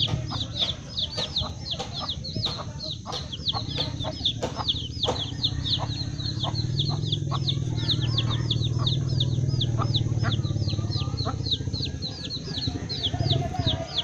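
Baby chicks peeping nonstop in an even run of short, falling high peeps, about four a second, beside their protective mother hen. Scattered short clucks or knocks come in the first half over a low steady rumble that swells in the middle.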